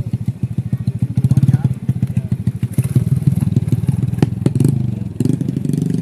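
Small motorcycle engine running at low speed, a rapid even putter, as it passes close by and moves off along a dirt path. Two sharp knocks about four seconds in.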